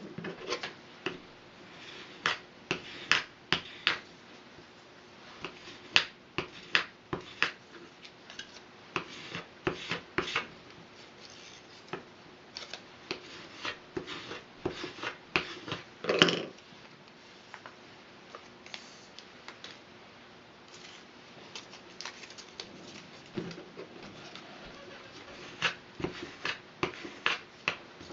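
Hand work with barley straw strips on a marble board: irregular sharp clicks, taps and short scrapes as the strips are cut with a blade and pressed flat with a plastic scraper, with one louder knock about halfway through. A faint steady hum sits underneath.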